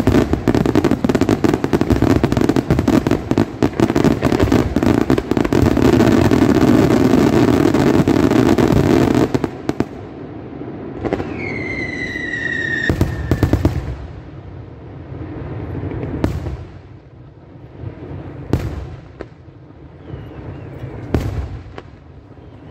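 Aerial fireworks closing barrage: a dense, rapid run of shell bursts and crackle that stops suddenly about nine seconds in, the end of the show. After it come a short falling whistle and a few scattered single bangs.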